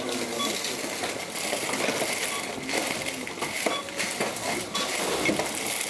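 Supermarket checkout sounds: coins and goods clinking with scattered clicks and rustling over a steady shop hubbub.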